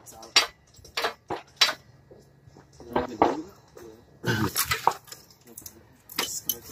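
Irregular metal clinks and knocks in an engine bay, from tools and the engine hoist's chain against engine parts as the engine is worked loose for removal.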